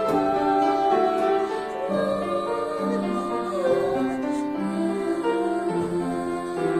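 Music of a pop song: keyboard accompaniment with a sung melody line over it.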